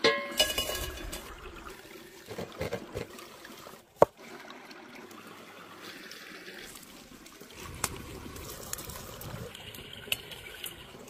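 A stream trickling steadily under outdoor cooking handling sounds: a metal clink that rings briefly at the start, a single sharp knock about four seconds in, and a few smaller clicks near the end.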